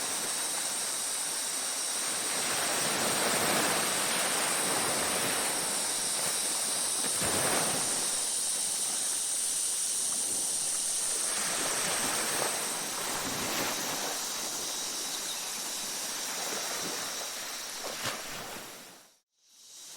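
Ocean surf washing onto a beach in slow swells every few seconds, with steady high-pitched tones above it. Just before the end the sound fades out to a brief silence and then comes back.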